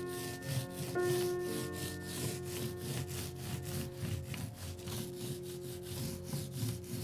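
Small paint roller rubbing over a rough textured tile-adhesive plaster surface in quick back-and-forth strokes, with a rasp on each stroke. Background music with held notes plays underneath.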